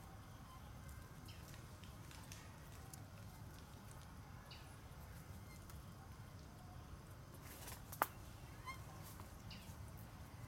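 Faint scattered clicks and rustles, with one sharp snap about eight seconds in, followed by a brief run of quick high chirps from an animal.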